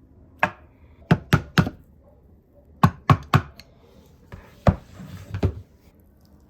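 A series of sharp knocks on something hard: a single knock, then two quick runs of three, then two more single knocks.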